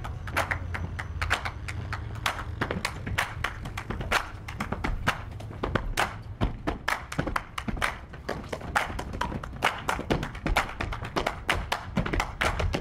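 Percussion beaten out with feet on a sloped rooftop: many fast, sharp taps and knocks in a busy, interlocking rhythm, over a low steady hum.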